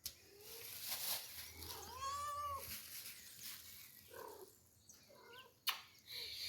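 A domestic cat meowing: one clear drawn-out meow rising and falling in pitch about two seconds in, then a few shorter meows around the fourth and fifth seconds. A sharp click sounds near the end.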